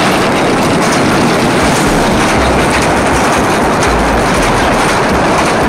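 Small open-carriage toy train running along its track: a steady, loud rumble and clatter of the wheels and carriages.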